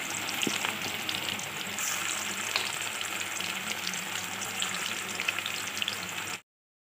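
Sesame-coated chicken pakoda pieces deep-frying in hot oil in a kadai: steady sizzling with scattered small crackles. It cuts off abruptly near the end.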